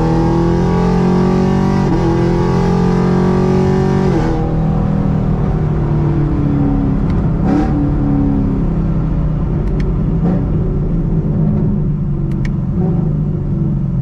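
Car engine heard from inside the cabin, accelerating with its pitch climbing for about four seconds. It then drops off suddenly as the throttle is lifted and falls away in pitch while the car slows, over a steady road rumble.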